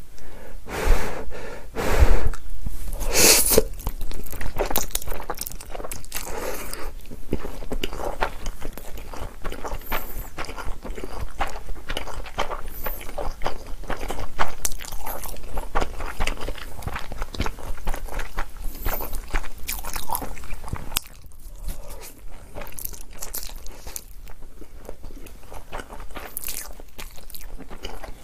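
Close-miked eating of jjapagetti black-bean sauce noodles: a few loud mouth sounds as the noodles go in during the first few seconds, then steady, wet chewing of a full mouthful, a little quieter from about three quarters of the way through.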